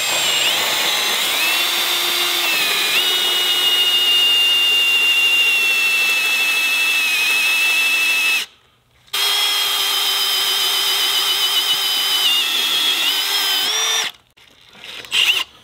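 Milwaukee M18 Fuel cordless hammer drill running under heavy load, boring a wide bit into a green ash hardwood log. The motor whine sags slowly in pitch as the bit bites, stops briefly about eight seconds in, resumes, and stops about fourteen seconds in, with a couple of short bursts near the end.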